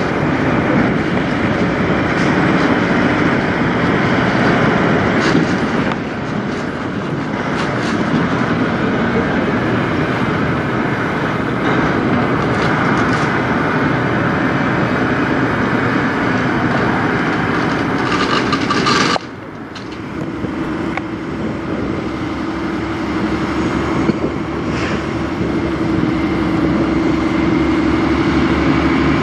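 Kenworth semi trucks' diesel engines running as the rigs move slowly through the lot, a loud, continuous rumble. About two-thirds of the way in it cuts off abruptly and gives way to another truck's engine with a steady drone.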